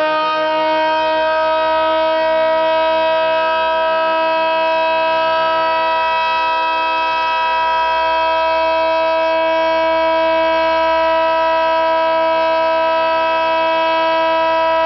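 Federal Signal 3T22 three-tone outdoor warning siren at full speed, sounding its loud chord held at a steady pitch after creeping up slightly in the first second.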